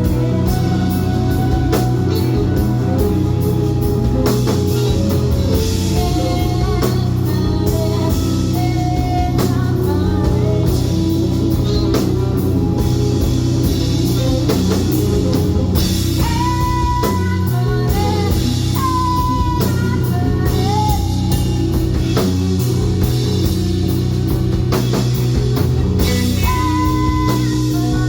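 Rock band playing at a steady loud level: guitar and drum kit under a melody line of held, bending notes.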